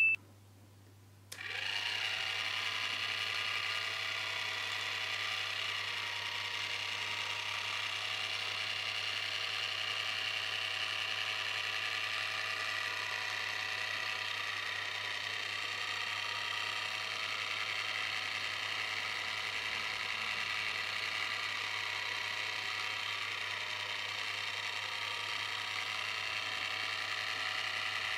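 Small electric motor of a Deadpool bubble-blowing figure running steadily as a whine with several fixed tones. It starts suddenly about a second in and keeps an even pitch until it stops right at the end.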